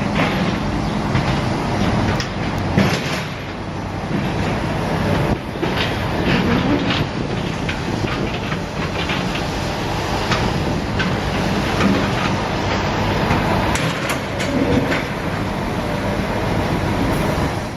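Demolition machinery running: a steady engine rumble under constant clanking and crunching, with scattered sharper knocks.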